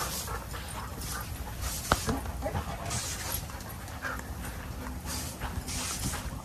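Dogs panting and scuffling as they play, in short bursts every second or so, with one sharp knock about two seconds in.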